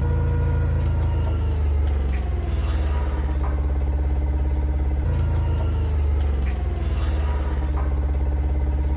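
An engine running steadily with a low hum, its pitch shifting slightly a few times.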